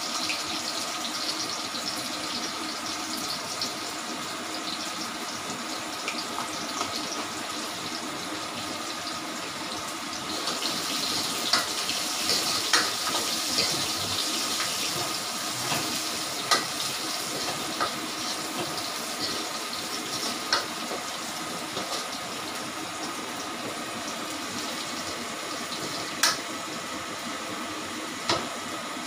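Tempering of dried chillies, urad dal, mustard seeds, shallots and curry leaves sizzling in hot oil in a steel wok, a steady hiss, with a few sharp clicks and pops as it is stirred with a metal spatula.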